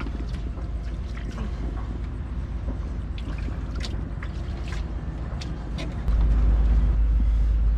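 Low rumble of wind on the microphone with scattered light clicks and drips of water; the rumble gets louder about six seconds in.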